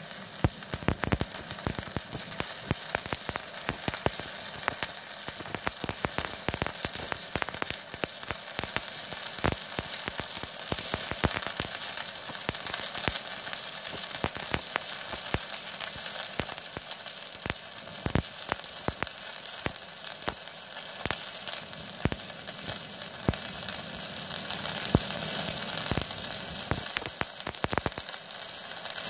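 Stick (MMA) welding arc burning an electrode at about 157 amps from an inverter welder: a steady crackling sizzle packed with frequent sharp pops.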